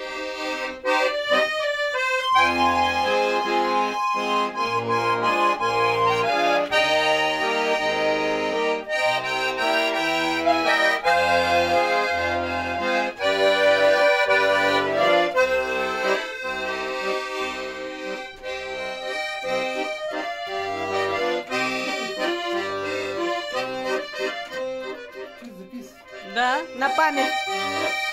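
A red Russian button accordion (garmon) playing a tune: a melody over chords and bass notes, dropping briefly quieter near the end before resuming.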